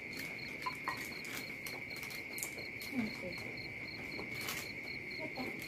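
Crickets chirping: one steady high trill, with a second higher chirp pulsing about five times a second, and a few faint clicks.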